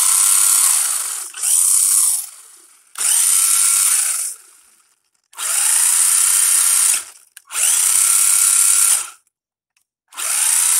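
Electric motor and drivetrain of a 1/16 Cheerwing Rocket 4x4 short course RC truck whirring with a high whine in about six full-throttle bursts of one to two seconds each, wheels spinning up on a run-down battery.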